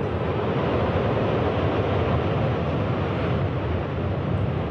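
Steady rushing roar with no separate impacts: a high-rise building collapsing, heard from far off.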